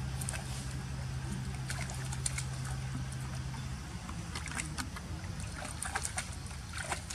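Light splashing and dripping of shallow muddy water as a young macaque wades through a puddle, the splashes growing more frequent in the second half. Under it runs a steady low hum that stops about four seconds in.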